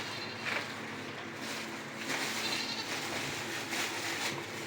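Goats or sheep of a small herd bleating, a few separate calls.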